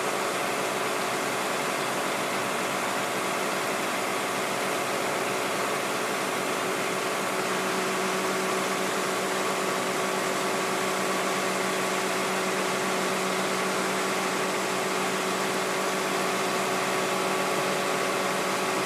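A vehicle engine idling steadily, a constant mechanical hum with several steady tones; a lower tone grows a little stronger about eight seconds in.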